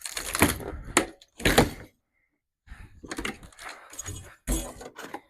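Wooden shipping crate being broken apart and unloaded: a run of cracks, knocks and thuds, with sharp strikes about a second in and a heavy thud near the end.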